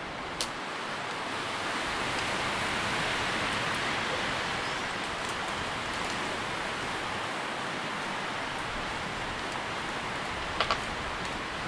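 Wind rustling through tree leaves: a steady rustle that swells gently over the first few seconds. A single sharp tick sounds about half a second in, and two quick ticks come close together near the end.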